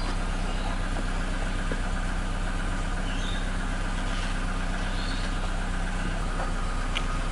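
A steady low mechanical drone like an idling engine or running motor, with faint high puppy squeaks a few times over it.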